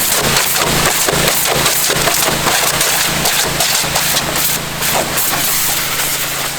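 Pressure washer jet blasting a plastic container of water: a loud hissing spray with rapid, irregular crackling spatter, cutting off suddenly at the very end, over a steady low hum.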